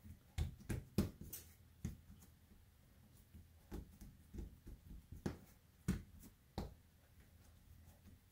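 Hands patting and pressing soft roti dough flat on a countertop: a dozen or so soft, irregular pats.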